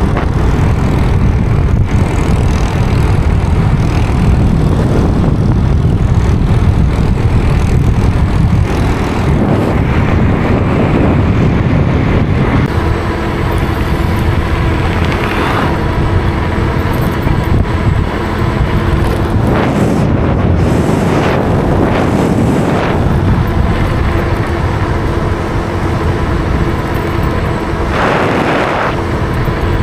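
Road vehicle noise: a steady engine and tyre rumble with a low hum, and a few louder swells as vehicles pass, about halfway through and again near the end.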